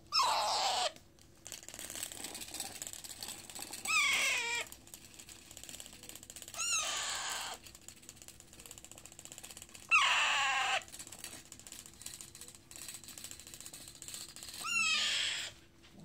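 A parakeet chick gives five loud begging calls with short gaps between them. Each call lasts under a second. Some are harsh squawks that fall in pitch, and others are fast runs of repeated chirps with a ratchet-like sound.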